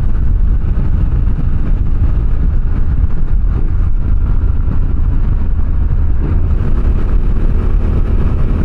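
Yamaha Ténéré 700 motorcycle on the move, its parallel-twin engine running steadily under a heavy low rumble of wind on the microphone.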